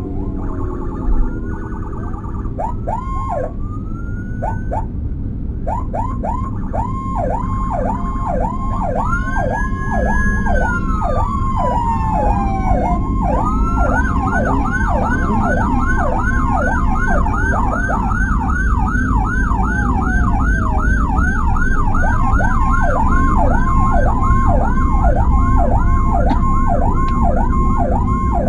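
Several emergency-vehicle sirens from a slow-moving police-escort and ambulance convoy sounding at once: a fast yelp of about three sweeps a second runs throughout, a falling wail sweeps down once near the middle, and a second, higher-pitched yelp joins about halfway through. Underneath is a steady rumble of engine and road noise, heard from inside a vehicle cabin.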